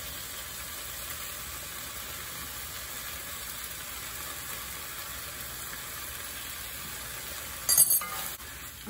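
Shredded beef and sauce sizzling in a stainless steel wok over a gas flame, a steady frying hiss. Near the end a short, louder scrape and clink of the wooden spatula stirring against the pan.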